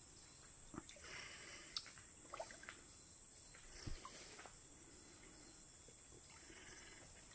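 Near silence: faint trickling of stream water with a few small, scattered splashes and light knocks.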